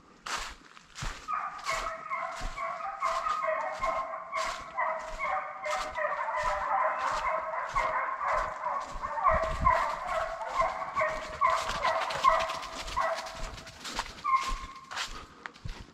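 Hunting hounds baying, several voices overlapping in long drawn-out bawls, with a short break near the end. Footsteps crunch through dry leaves about twice a second underneath.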